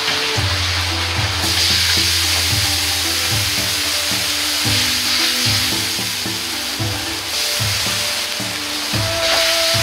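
Seasoning sauce of doubanjiang, sweet bean sauce and Shaoxing wine sizzling in a hot wok. The sizzle swells about a second and a half in as the liquid hits the metal and steams hard. It swells again near the end as chicken stock is ladled in.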